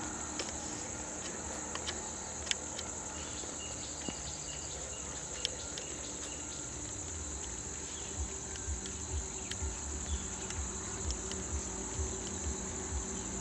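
Steady high-pitched chorus of insects such as cicadas or crickets, with a low rumble underneath that pulses more often in the second half and a few scattered clicks.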